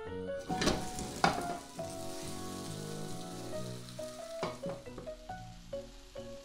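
Egg-free enoki mushroom and carrot pancake frying in oil in a nonstick pan, sizzling, louder for a moment about a second in. Soft background music with steady notes plays throughout.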